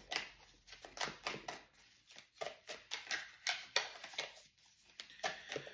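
A tarot deck being shuffled and handled, an irregular run of light card snaps and clicks, several a second.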